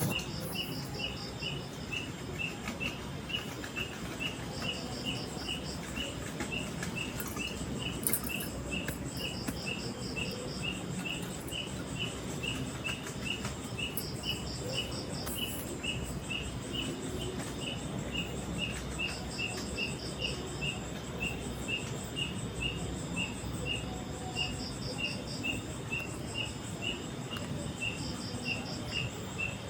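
Chirping insects in a forest: one gives a steady high chirp about twice a second, and another gives a short, faster, higher-pitched pulsing trill about every five seconds, over a steady low background hiss.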